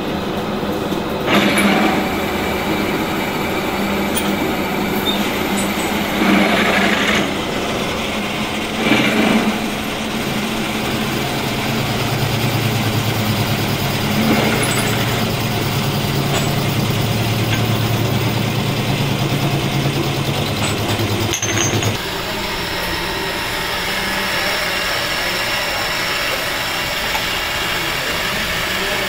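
Metalworking machinery running steadily. A few short louder bursts come in the first ten seconds, and a deeper hum sets in about ten seconds in and cuts off abruptly around two-thirds of the way through.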